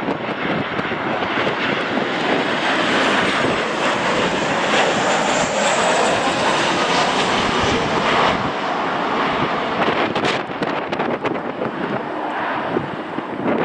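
Airliner engines running as the plane passes close by on approach, a loud steady rush with a faint high whine near the middle that rises and falls. Wind buffets the microphone near the end.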